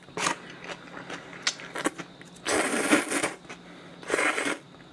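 Spicy mixed noodles (bibim-myeon) slurped in through the lips: a short slurp at the start, then two long, loud slurps about two and a half and four seconds in, with small mouth clicks between.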